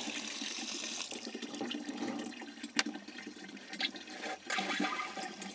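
Water pouring and splashing from a filter bucket's outlet fitting onto wet ground. About three seconds in there is one sharp click as a PVC drive pipe is pushed onto the outlet.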